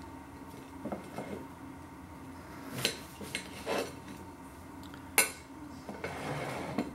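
Knife and fork clinking and scraping on a china dish while cutting through a pasty. There are several sharp clinks, the loudest about five seconds in, and a longer scrape near the end.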